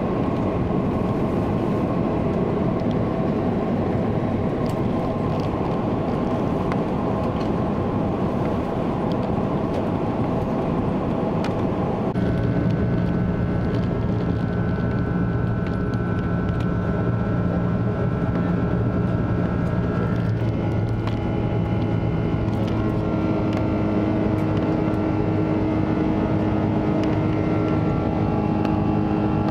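Steady cabin roar of an Airbus A330-300 on approach, heard from a window seat beside the wing: engine and airflow noise. About twelve seconds in, a set of steady engine tones comes in, and they change pitch again about eight seconds later.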